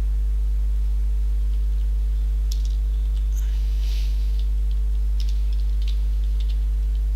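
Steady low electrical mains hum, the loudest sound throughout. From about two and a half seconds in, faint computer keyboard clicks are scattered over it as a word is typed.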